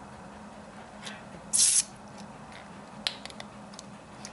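Knife blade tip gouging into a plastic bottle cap to pierce it: one short, harsh scrape about a second and a half in, then a few light clicks and ticks of steel on plastic.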